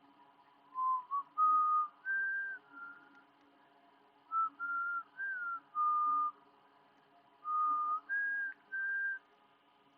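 A person whistling a tune: clear held notes stepping up and down in short phrases, over a faint steady hum.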